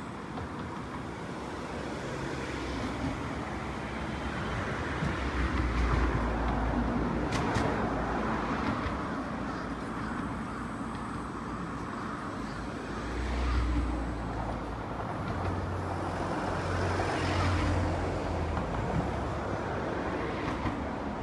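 Steady outdoor hum of distant road traffic, with low rumbles rising and falling every few seconds.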